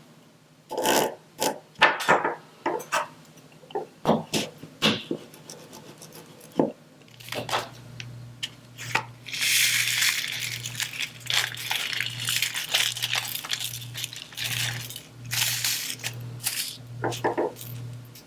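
Close-up diamond-painting handling sounds: a run of sharp taps and clicks, then scraping and rustling over the canvas. From about seven seconds in, a low hum pulses in even beats a little under a second apart.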